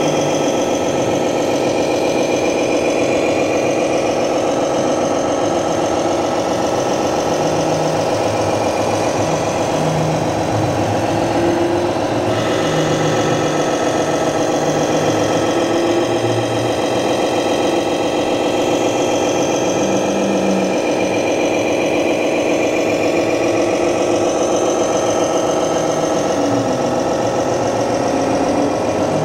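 Electronic sound module of a 1:14-scale RC model truck, playing a steady diesel truck engine running at idle through a small speaker.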